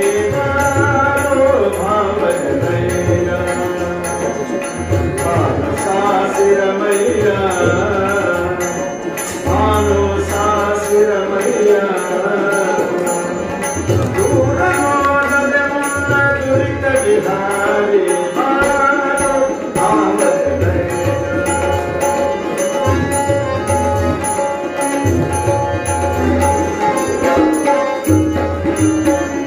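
Male voice singing a Kannada devotional song with tabla and harmonium accompaniment, the tabla's deep bass strokes coming and going under the melody.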